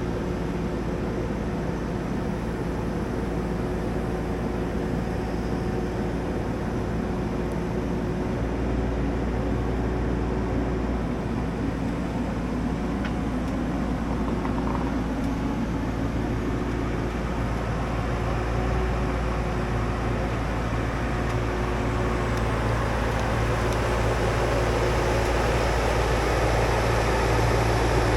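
Stihl MS661 chainsaw running steadily under load in a Logosol F2+ chainsaw mill, cutting lumber from a maple log, growing a little louder near the end.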